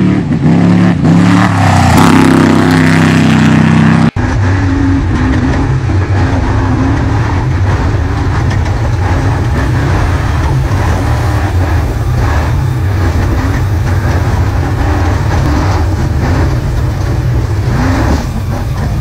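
Off-road race truck's engine revving hard, its pitch rising and falling, for about four seconds. After a sudden cut, the engine runs steadily at speed as heard from inside the cab, with constant rattling and road noise.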